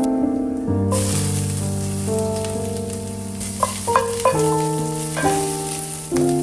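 Food sizzling as it fries in a pan, under background music of held keyboard notes.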